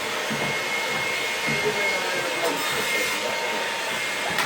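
A vacuum cleaner running steadily, a rushing hiss with a thin high whine held at one pitch.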